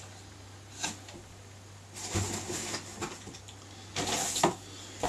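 Packaging being handled: foam packing and plastic wrapping rustling and scraping, with a light click about a second in and louder rustling bursts about two and four seconds in, over a faint steady hum.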